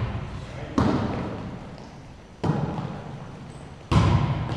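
A volleyball being struck during a rally: three sharp smacks of hand on ball about one and a half seconds apart, each ringing out in the echo of a large gymnasium.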